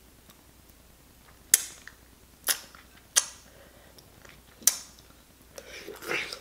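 Four sharp, separate clicks from long acrylic fingernails and metal rings knocking while fingers work food in a glass bowl of sauce. Near the end there are softer wet mouth sounds as a sauce-coated piece is bitten.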